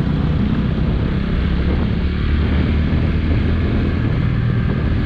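Motorcycle being ridden at a steady pace, heard from the rider's seat: an even low drone from the bike with steady ride noise over it.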